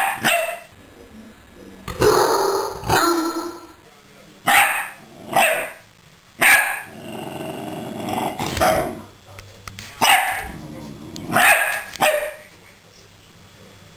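Small wiry-coated terrier barking repeatedly in sharp barks, mostly in pairs about a second apart, with a low growl between barks around the middle.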